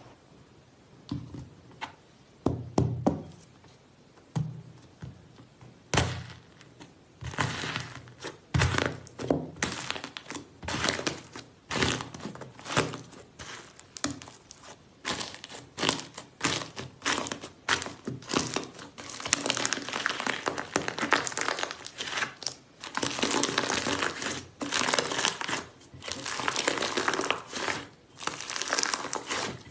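Slime being squeezed and poked by hand, giving sharp crackling pops and clicks. It starts as a few soft thuds, then turns into a dense crackle from about six seconds in that gets busier and louder in the second half.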